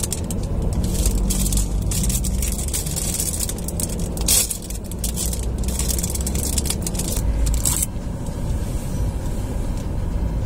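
Plastic bread wrapper crinkling and rustling as it is opened by hand, over a low steady vehicle rumble inside a car. The crinkling stops about eight seconds in, leaving the rumble.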